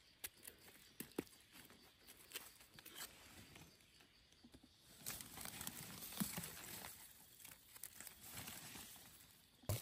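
Faint rustling and crunching of dry leaf litter on a forest floor, with scattered small clicks and snaps, busiest about halfway through.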